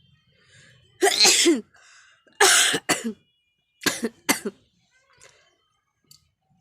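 A woman sneezing in a quick fit, set off by tickling her nose with a grass flower. There are five sharp bursts: a longer first one about a second in, then two close pairs.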